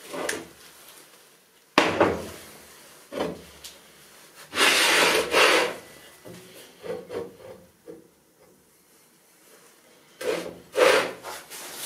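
A heavy welded steel frame handled on a steel channel and a steel workbench: several metal knocks, the sharpest about two seconds in, and a scraping slide of steel on steel lasting about a second around the middle.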